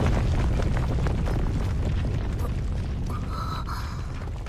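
Low rumble of a rockfall settling after a cave-in, with scattered crackles of rubble, slowly dying away. A faint high ringing tone enters briefly near the end.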